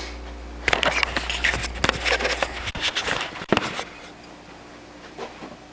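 Handling noise: irregular clicks, knocks and scrapes for about three seconds, then quieter, with a low hum that stops about halfway through.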